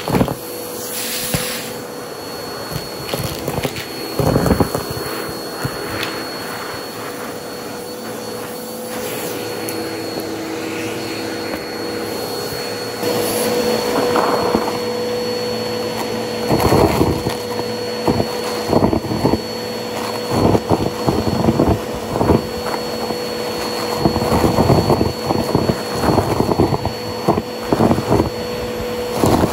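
Bissell OnePass upright vacuum cleaner running with a steady whine as it sucks at a pile of deflated balloons and styrofoam pieces on carpet. Repeated crackling and rattling bursts come as the debris is pulled in and dragged, growing more frequent in the second half.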